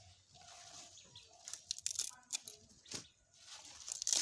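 Red radish leaves and stalks rustling as they are handled, with a few sharp snaps as the stalks are twisted off the root, the loudest about three seconds in and near the end.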